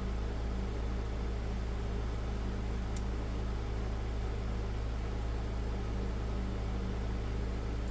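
Steady background hum and fan-like hiss, with one faint click about three seconds in.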